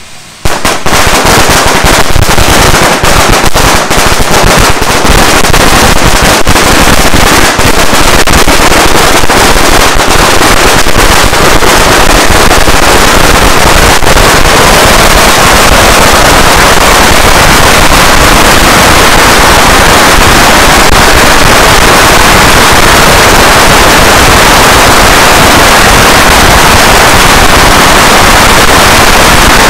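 A long string of firecrackers set off about half a second in. The bangs come so fast that they run together into a continuous, very loud crackling rattle.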